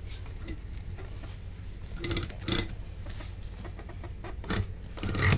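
A hand rubbing and knocking on the plastic back of a train seat gives a few short scrapes and creaks, the loudest just before the end. Under it runs the steady low rumble of the moving train.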